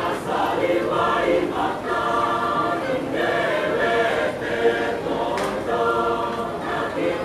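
A mixed choir of women's and men's voices singing together in chords, with held notes that shift every second or so.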